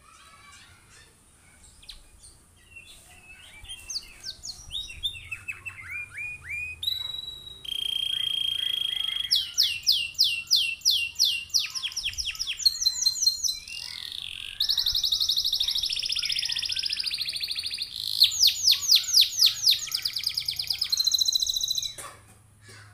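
Domestic canary singing. After a faint opening come quick falling notes and a held whistle, then long, very fast trills (rolls) in several runs, each loud and even. The song breaks off near the end.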